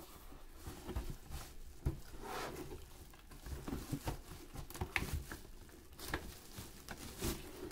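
Cardboard toy box being opened and handled by hand: scattered taps, scrapes and rustles of cardboard and packaging.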